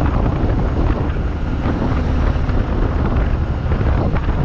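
Loud, steady wind buffeting the microphone, a rumbling rush with no clear tones.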